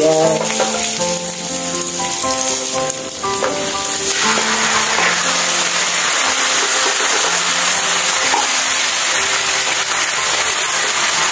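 Onion and garlic frying in oil in a pan, stirred with a wooden spatula; about four seconds in the sizzle becomes much louder and stays loud as canned sardines in tomato sauce go into the hot pan. Background music plays underneath.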